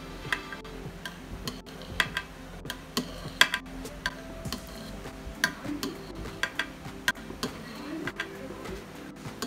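Knife blade clicking and tapping against the bottom of a glass baking dish as it cuts through set coffee jelly, in irregular sharp ticks about one or two a second.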